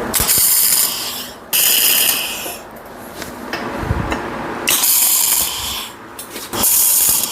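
Arc welding tacks on steel plate: four separate bursts of crackling, sizzling arc noise, each about a second long, with a dull knock near the middle.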